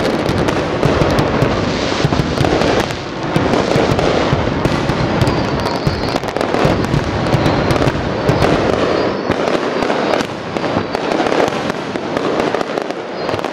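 Aerial fireworks display: many shells bursting and crackling in rapid, overlapping succession, a continuous barrage that eases a little near the end.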